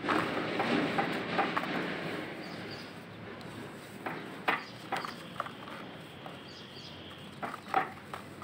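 Hands crumbling lumps of dry compacted soil in a plastic bucket. A steady crumbling, sifting rustle for the first couple of seconds, then a handful of sharp crunches as a hard dry block is broken apart.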